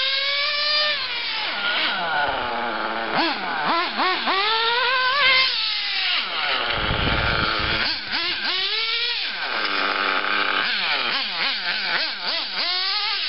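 Small high-revving nitro engine of a 1/8-scale RC buggy, its pitch rising and falling again and again as the throttle is worked and the car is driven around.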